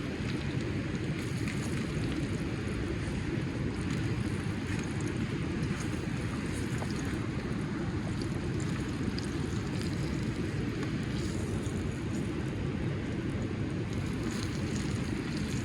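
Steady rushing noise of wind and flowing river water, heaviest in the low end, with a few faint clicks.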